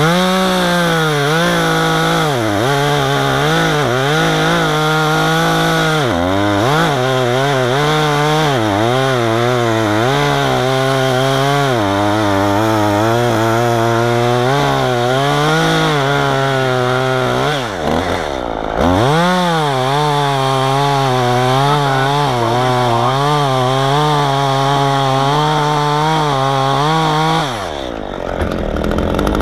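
Efco MT 3600 top-handle two-stroke chainsaw running at full throttle and cutting wood, its pitch sagging and wavering under load. It drops off sharply three times and revs back up, then falls back toward idle near the end.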